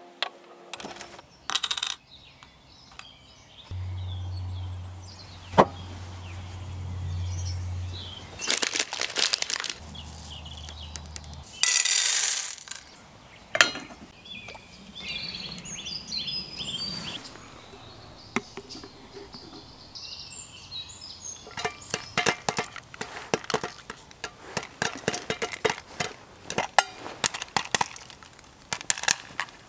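Scattered metallic clinks and knocks as popcorn kernels are dropped into an aluminium camping pot, then, from about two-thirds of the way in, rapid irregular sharp pops of popcorn popping in the pot heated on a penny can alcohol stove.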